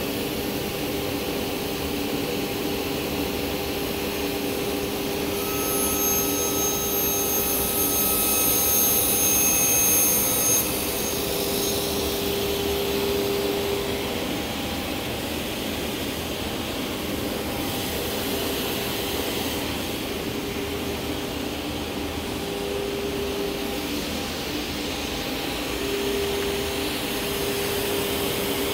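Sliding table saw with a 100-tooth crosscut blade running with a steady whine. From about five seconds in to about ten seconds the blade cuts through a piece of wood, adding a loud high hiss, then the saw runs on freely.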